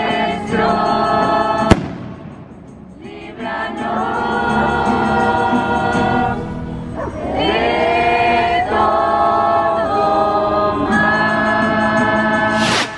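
A choir sings a slow hymn in held phrases, with acoustic guitar accompaniment. A single sharp bang cuts in about two seconds in.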